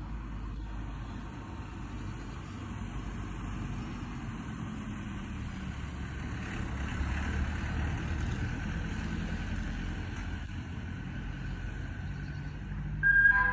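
Ice cream van's engine running as it drives past, its low rumble swelling to its loudest around the middle. Its chime tune starts playing right at the end.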